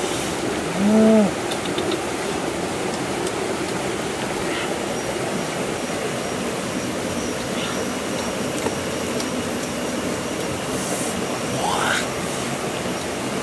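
Steady rushing of a flowing forest stream. About a second in comes a brief low pitched hum, the loudest moment, and near the end a faint short rising tone.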